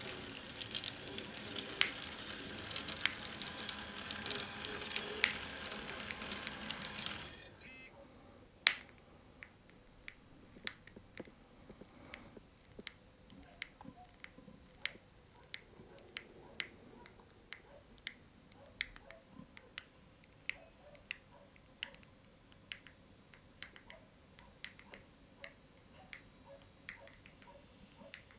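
HO-scale model train running on the track: a steady rushing hiss with ticking for about the first seven seconds, which cuts off suddenly. After that come sharp, light clicks about one or two a second as the wheels of the passing coaches roll over the rail joints.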